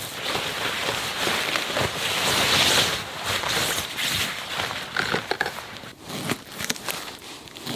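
Loud rustling and scraping of tent nylon and an inflatable sleeping pad as a person pushes the pad into a dome tent and climbs in, dying down after about three seconds. Near the end come crinkling paper and short clicks of a knife slicing through salo.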